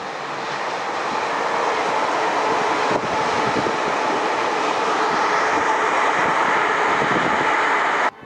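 A train passing at speed, a steady rushing noise that builds over the first couple of seconds, holds loud, then cuts off abruptly near the end.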